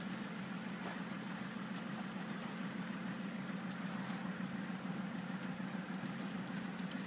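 A horse cantering on arena sand, its hoofbeats faint under a steady low hum that runs throughout.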